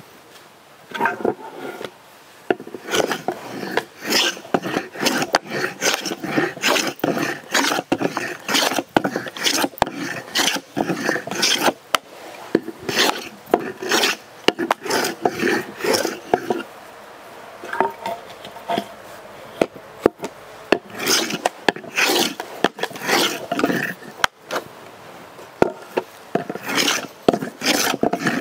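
A hand tool worked on oak wood in repeated rasping strokes, about one to two a second, with a couple of short breaks.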